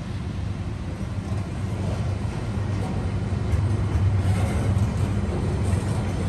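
TasRail diesel freight train departing: the low rumble of the last of its three locomotives going by, then loaded container wagons rolling past on the rails. The sound grows louder from about three seconds in.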